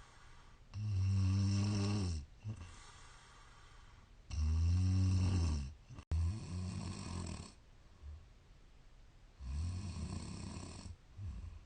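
A woman snoring in her sleep: loud, low snores of a second or two each, about four of them, with quieter breathing in between.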